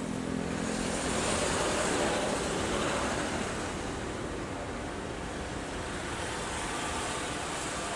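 Airliner jet engines running at low power, heard across the airfield as a steady rushing noise that swells between about one and three seconds in.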